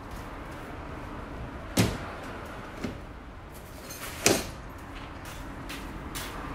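Gear being set down in a pickup truck's bed: two sharp knocks, about two and a half seconds apart, with a fainter knock between them, as a plastic basket and a tool bag are put in place.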